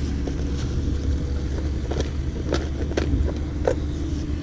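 Rummaging through a backpack for a pair of pliers: fabric rustling with several sharp clicks and clinks of gear, most of them in the second half, over a steady low rumble.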